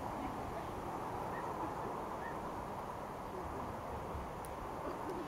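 Steady outdoor background noise, with a couple of faint short calls early on and a few faint clicks near the end.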